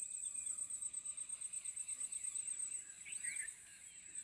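Insects chirping in a steady, rapid high-pitched trill, with a few short bird chirps about three seconds in.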